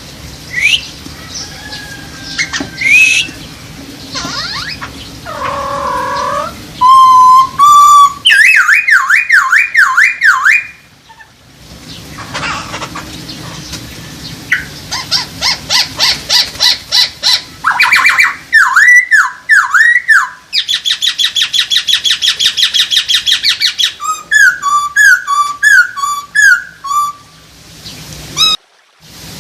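Chinese hwamei (Poksay Hongkong) singing a loud, varied song of clear whistled phrases. Each note is repeated several times in quick series, with a fast trill in the second half and brief pauses about eleven seconds in and near the end.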